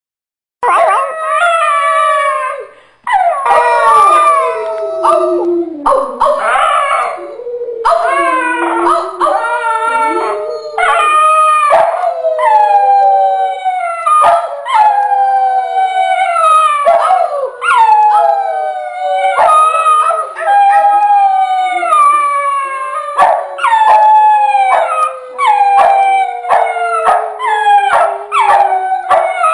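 Two dogs howling together in a string of falling howls that often overlap, with a long, slowly falling note held beneath the others during the second half.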